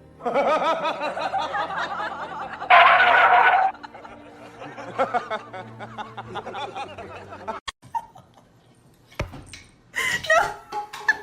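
A person laughing in a run of snickers and chuckles, loudest about three seconds in, followed later by a sharp click and a low thump.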